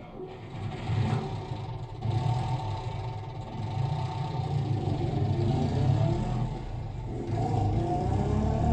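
Bass-heavy recorded music played back through a NAD 3020 integrated amplifier and loudspeakers.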